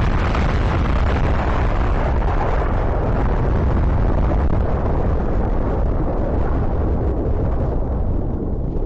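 Aftermath of a car's LPG tank bursting: a loud, steady rumbling rush of noise with no separate bangs, its higher part slowly dying away over the last couple of seconds.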